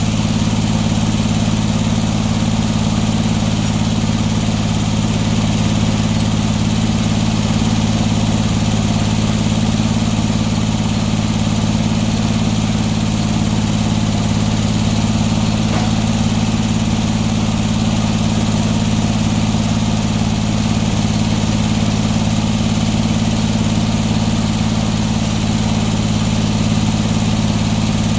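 Sawmill engine running at a steady speed, a constant low hum that does not rise or fall.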